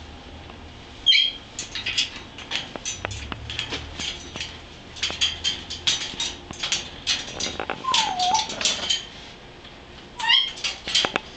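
Blue-and-gold macaw clambering over a wire cage, its beak and claws clicking and tapping on the metal bars in quick irregular runs. It gives a brief high call about a second in and a short call that dips in pitch near the middle.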